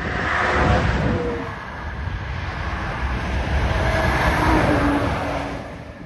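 Road traffic passing close by: cars swishing past, one swelling up about a second in and another around four to five seconds in, each with a slightly falling engine note as it goes by.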